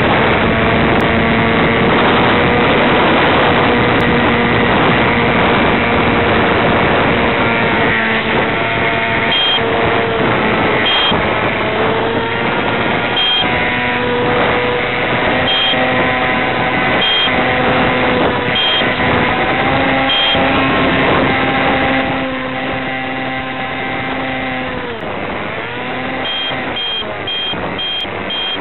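Electric motor and propeller of an FPV model plane whining steadily over a rush of air, the pitch shifting as the throttle changes. Near the end the pitch dips and comes back up. Short high beeps sound now and then from about a third of the way in, then repeat steadily near the end.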